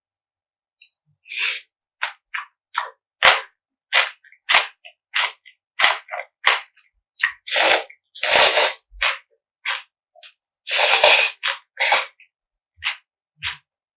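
Close-miked mukbang eating sounds: a run of short, crisp crunching bites about two a second, with two longer slurps about halfway through.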